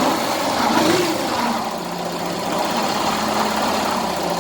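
Yamaha Fazer 150 single-cylinder engine running, rising and falling in pitch about a second in, then settling to a steady idle. It carries a mechanical noise that sounds much like a broken bearing but comes from a burned, shorted stator.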